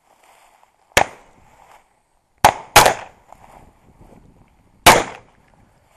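Four shotgun shots: one about a second in, a quick pair about a second and a half later, and one more near the end, each with a short echo.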